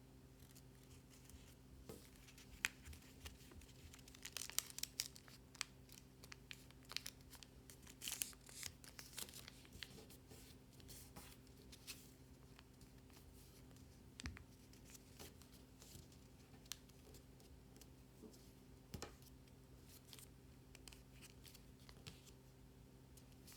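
A sheet of origami paper being folded and creased by hand: scattered soft rustles and crinkles, busiest from about four to ten seconds in, over a faint steady hum.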